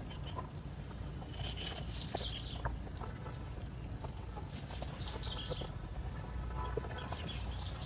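A bird in the background repeating a short song phrase of high chirps that fall in pitch, about once every three seconds. Under it a steady low rumble with a few faint clicks.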